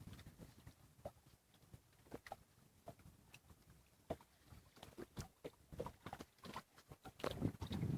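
Scattered faint knocks and clicks of handling aboard a small fishing boat, irregularly spaced, with a louder muffled thump near the end.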